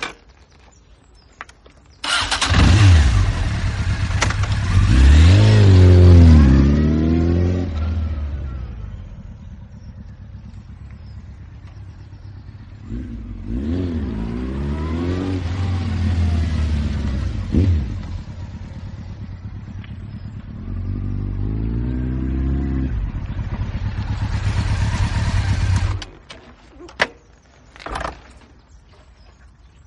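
Motorcycle engine starting after a few clicks, revving up and down several times with steadier, quieter stretches in between, then cutting off abruptly near the end, followed by a couple of clicks.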